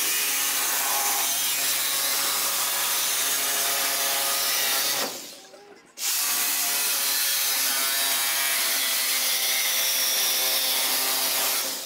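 Cordless drill running at a steady speed, drilling into a steel sheet fastened to a trailer frame. It winds down and stops about five seconds in, starts again a second later, and runs on until near the end.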